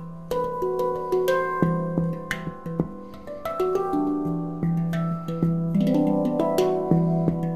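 Celestial Sound handpan in E Ostara tuning played with the fingertips: quick strikes on the steel tone fields ring into overlapping notes over a low note that keeps returning, with a fast flurry of notes about six seconds in.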